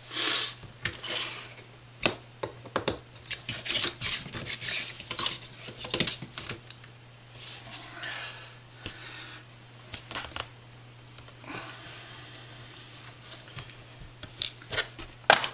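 Small parts and hand tools being handled on a workbench: irregular clicks, taps and rustles as plastic and metal pieces of an RC crawler's front end are picked up and set down, with a sharp click near the end. A steady low hum runs underneath.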